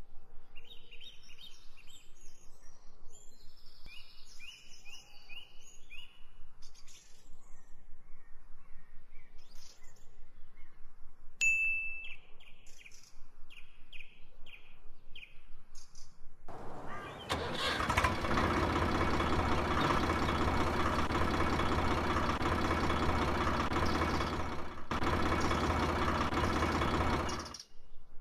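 Small birds chirping in short, high calls. About two-thirds of the way through, a much louder motor starts running steadily with a low hum. It falters briefly once and cuts off just before the end.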